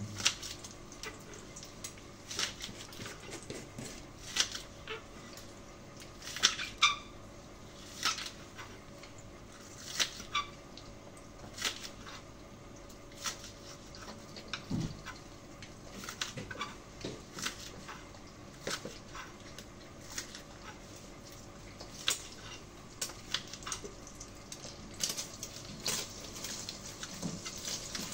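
Food frying in hot oil in a pan: a faint sizzle with scattered sharp pops every second or two, the sizzle growing a little stronger near the end.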